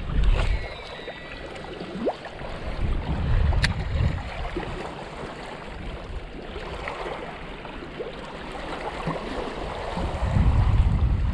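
Wind gusting over the microphone with a low rumble, over a steady rush of water and wind, and a single sharp click a few seconds in.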